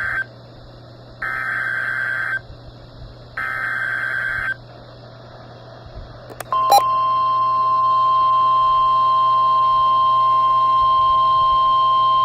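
NOAA Weather Radio Emergency Alert System activation. The tail of one SAME digital header burst is followed by two more screeching data bursts about a second each, with short gaps between them. After a brief pause and a click, the steady 1050 Hz warning alarm tone begins and holds.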